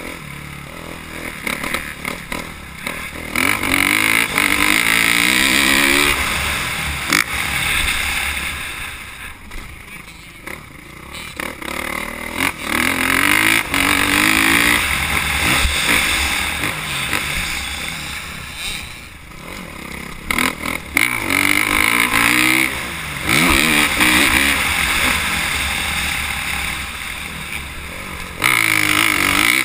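Motocross dirt bike engine ridden hard on a dirt track, repeatedly revving up under throttle and falling off as the throttle is closed. The pitch rises and falls with each burst, with quieter stretches about a third and two-thirds of the way through.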